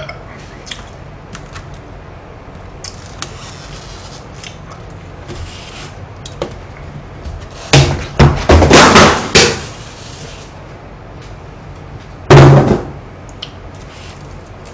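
Rustling and knocks as a foil-lined takeout food tray is moved and cleared off a desk: a run of loud crinkles and bumps a little over halfway through, then one more loud bump about three seconds later, with small clicks in between.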